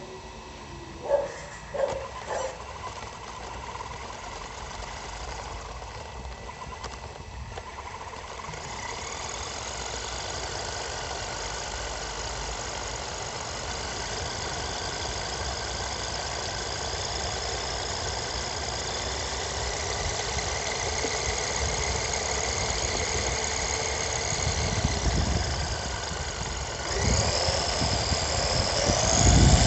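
HSP 94123 1/10-scale electric RC car running, heard from on board: a steady whine with several fixed tones grows slowly louder, after a few sharp clicks near the start. Near the end a rising whine and heavy low tyre rumble on asphalt come in as the car speeds up.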